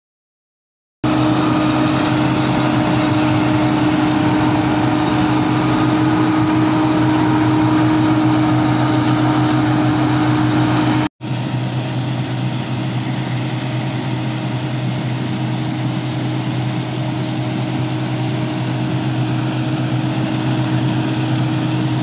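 Combine harvester running steadily while cutting and threshing wheat, a constant loud machine drone with a steady hum. About halfway through it drops out for an instant and comes back a little quieter.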